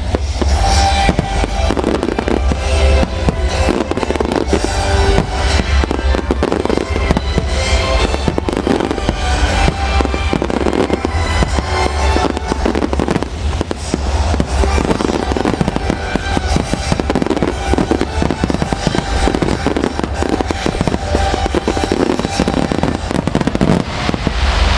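Fireworks shells and ground-fired mines launching and bursting in rapid, continuous succession, with crackling and deep booms, over music.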